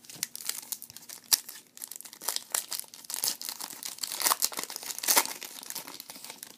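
Foil wrapper of a 2010 Bowman Platinum baseball card pack being torn open and crinkled by hand: a dense run of sharp crackles, loudest toward the end.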